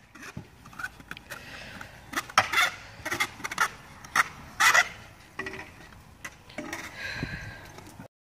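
Stunt scooters on a concrete skatepark bowl: repeated sharp clacks of metal decks and wheels hitting concrete and coping, with a few scrapes. The sound cuts off abruptly near the end.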